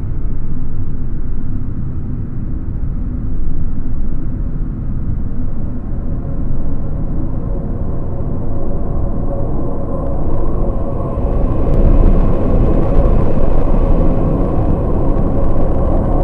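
A loud, steady low rumble that swells about ten seconds in.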